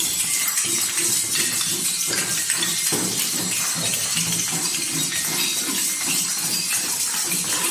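A group of young children shaking and beating tambourines, hand drums and maracas all at once: a continuous, irregular jingling clatter with no steady beat.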